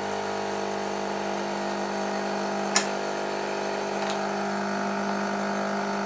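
Nescafé Dolce Gusto Jovia capsule coffee machine's pump running with a steady hum while it brews the coffee pod into a glass of frothed milk. A single sharp click comes about three seconds in.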